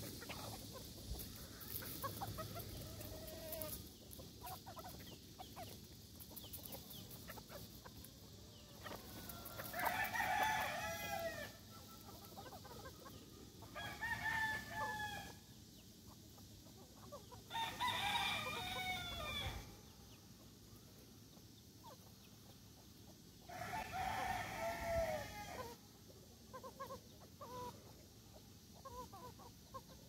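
Gamefowl roosters crowing four times, each crow lasting about two seconds, with softer clucking from the flock between the crows.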